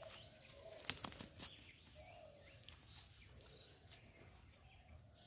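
Faint handling of a cast net as fish are picked out of the mesh: soft rustling and light ticks, with one sharp click about a second in.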